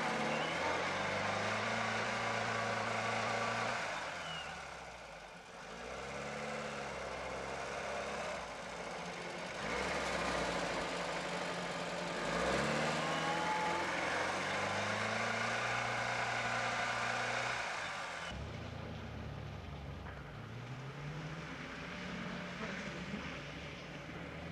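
UAZ-469's four-cylinder petrol engine revved up and down again and again as the stuck vehicle tries to pull out of deep snow. About three quarters of the way through, the sound changes to a quieter, more distant engine revving: a Lada Niva climbing a muddy slope.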